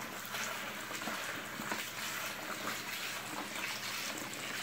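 Kitchen faucet running into a plastic bowl of sticky rice, a steady stream of water with small splashes as a hand swishes the grains to rinse them.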